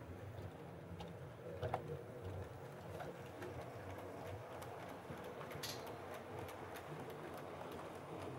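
Kit-built O gauge model tank locomotive running with a train of wagons: a faint low motor hum with the wheels ticking lightly over the rail joints, and a sharper click about two seconds in and again near six seconds.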